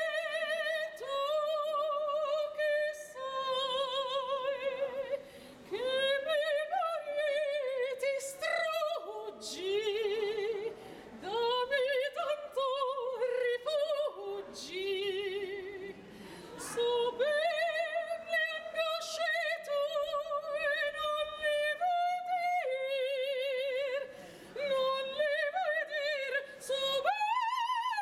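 A woman singing opera in a high voice, holding long notes with a wide vibrato, phrase after phrase with short breaks between them.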